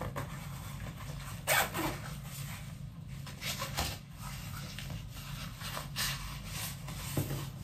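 Handling noise of charging cords and small plastic accessories being pushed into a small fabric case: light rustling and a few soft knocks, over a faint steady low hum.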